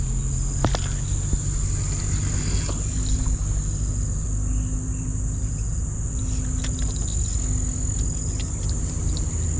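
Steady high-pitched insect drone over a continuous low rumble, with a single click about half a second in and a brief hiss just after it.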